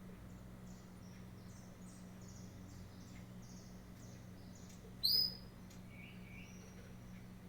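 Small wild birds chirping: a run of short, high chirps, with one much louder, sharp call about five seconds in and a few lower notes just after it. A steady low hum runs underneath.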